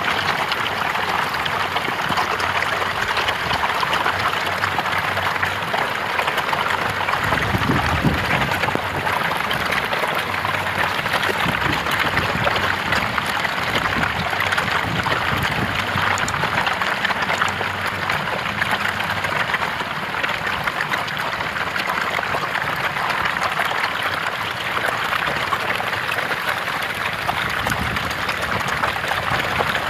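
A mass of catfish thrashing and splashing at the water surface as they feed on floating pellet feed: a dense, steady churning of water.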